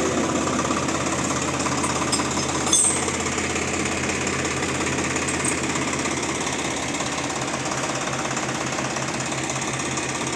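Diesel tractor engine running steadily with a fast, hard clatter. A single sharp metallic clink comes a few seconds in.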